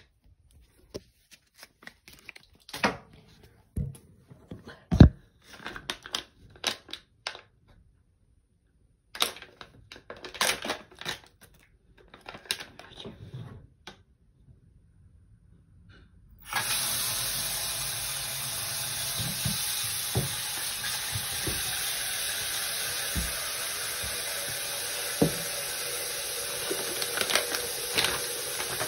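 Scattered handling knocks and clicks, then about halfway through a bathroom sink tap is turned on and runs steadily into the basin.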